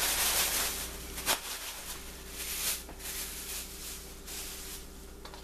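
Plastic bag of flour and seasonings being shaken, rustling, loudest at the start and then in weaker patches, with one sharp click about a second in.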